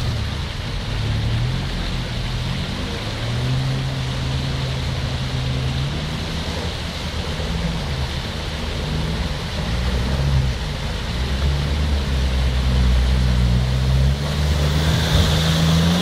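A 4x4 SUV's engine running as it drives through a flooded stream crossing, its pitch shifting with the throttle over the rush and splash of the water. Near the end the engine rises in pitch and grows louder as the vehicle churns through the water close by.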